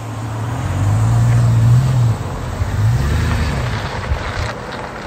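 GMC Yukon XL's 5.3-litre V8 with an aftermarket exhaust, accelerating as it pulls away. The engine note climbs for about a second, drops sharply, climbs again, then fades as the truck drives off.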